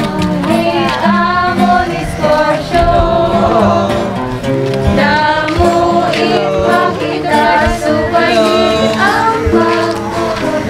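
Music with singing voices over instrumental backing, the song of an opening presentation.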